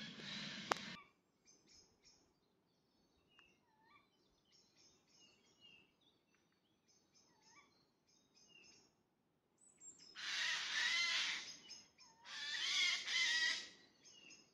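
A rustling noise that ends with a sharp click, then small birds chirping faintly. Near the end come two long, loud, raspy hissing calls, typical of a tawny owl chick begging for food.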